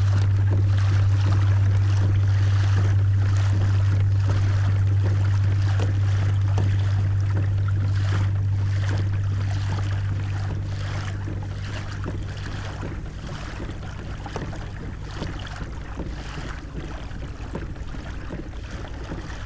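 Water swishing and lapping along the hull of a pedal-drive kayak under way on calm sea. A steady low hum runs underneath and fades down about two-thirds of the way through.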